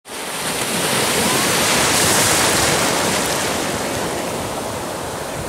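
Ocean surf breaking and washing through the shallows, a steady rush that swells to its loudest about two seconds in and then slowly eases.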